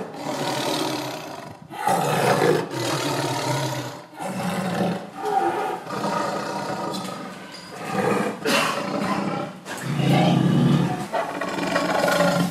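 A string of loud, roaring animal calls, each a second or so long with short breaks between, heard over a big-cat attack on a running guanaco.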